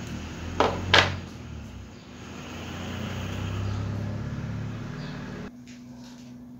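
Two sharp clacks of pliers set down on the bench top, then the flame of a portable gas burner on a small gas cylinder hissing with a low rumble, which cuts off suddenly about five and a half seconds in as its valve is closed.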